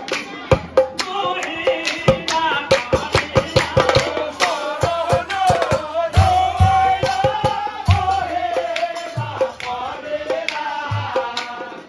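Nagara naam: men singing a devotional chant together over deep booming strokes on large rope-laced nagara drums, with a fast run of sharp hand claps.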